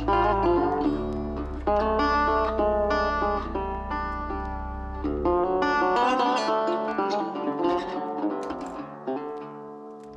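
Background music of plucked strings over a low bass line, fading out toward the end.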